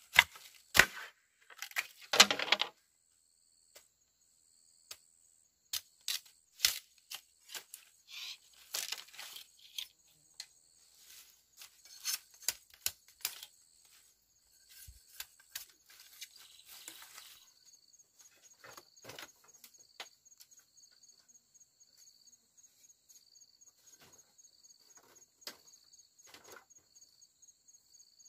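Irregular sharp cracks, rustles and tearing from something being handled, thick in the first half and sparse later. Under them insects chirr steadily in the forest, pulsing rapidly and evenly in the second half.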